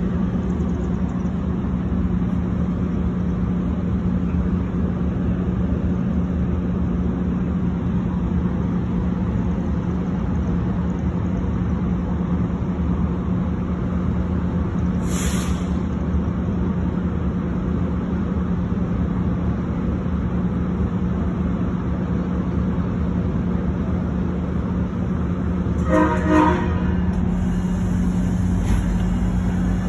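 MARC commuter train of bilevel passenger cars rolling past close by, a steady rumble with a constant low engine hum. A brief hiss about halfway through, and a short horn blast about a second long near the end.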